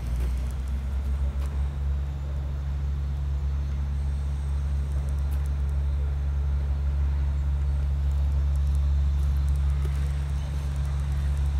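Steady low engine drone of a vehicle running close by, holding one pitch throughout.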